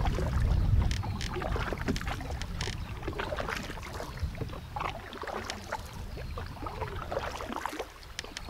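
Canoe paddle strokes: water splashing and dripping off the paddle and trickling along the hull, with wind buffeting the microphone during the first second.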